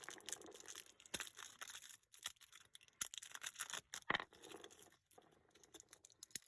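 Plastic packaging of alkaline batteries being torn open and crinkled by hand: irregular crackling with sharp little clicks.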